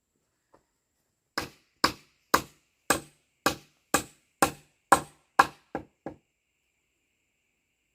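A tool striking wood in a run of eleven sharp blows, about two a second, the last two lighter and closer together.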